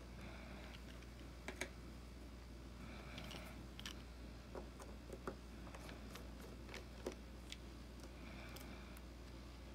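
Faint, scattered clicks and light scraping of a precision screwdriver working the tiny screws on the metal back plate of an iPhone 6s display assembly.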